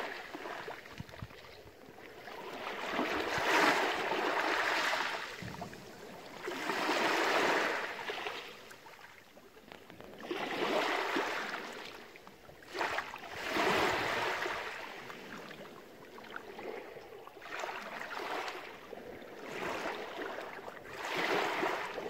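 Small sea waves washing in over a pebble beach, each wash swelling and fading every three to four seconds.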